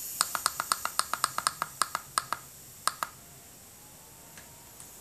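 Cytem Sound-10 Bluetooth speaker's front buttons pressed in quick succession, giving a fast run of short sharp clicking beeps, about seven a second for some two seconds, then two more a moment later.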